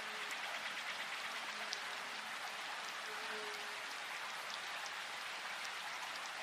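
Gentle rain falling steadily on a surface, with individual drops ticking here and there through the even patter.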